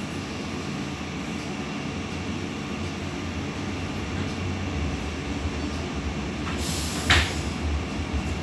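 Sheffield Supertram tram running along the line, heard inside the saloon: a steady low rumble of wheels and traction, with a single sharp knock about seven seconds in.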